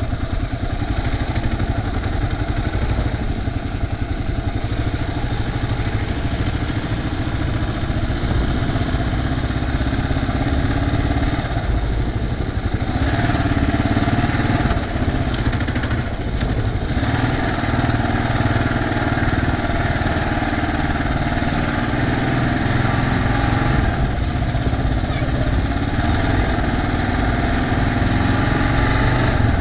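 Kawasaki KLR 650's single-cylinder four-stroke engine running as the motorcycle is ridden slowly between lanes of cars. The engine note grows louder about halfway through, dips briefly, then holds steady.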